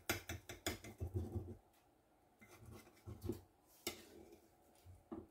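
Kitchen knife cutting through a potato tortilla, the blade clicking and scraping against the plate beneath: a quick run of light clicks in the first second and a half, then a few scattered taps.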